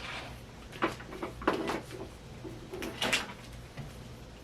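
Items being handled and fitted back together by hand: a few sharp knocks and clicks with some rustling, the loudest about one, one and a half and three seconds in.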